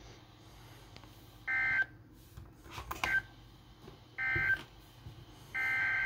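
Weather alert radio's speaker sounding three short buzzy data bursts, spread across the few seconds with quiet between, plus a few faint clicks: the digital SAME header tones that announce an incoming warning.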